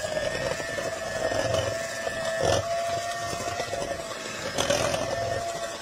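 Electric hand mixer running steadily with a constant whine, its beaters working flour into a stiff cookie dough. There are a couple of brief louder knocks, one midway and one near the end.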